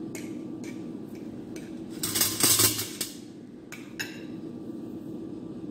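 Metal spoon clinking and scraping against a ceramic bowl as a potato roll is turned in beaten egg: a few single clinks, then a quick run of clinks about two seconds in, the loudest part, and two more a little later.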